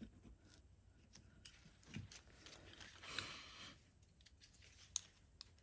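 Mostly near silence, with a short scrape about three seconds in and a few light ticks: a blade working a stuck gasket off a carburetor's idle-circuit cover plate.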